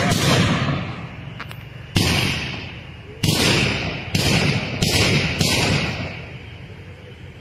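Large firecrackers of a Kerala temple fireworks display (vedikkettu) exploding in a loose series of about six loud booms, each ringing out for a second or so before the next.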